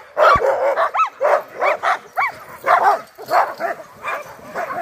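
Sled dogs barking and yipping in quick succession, about two to three calls a second, some higher and rising-falling like yelps.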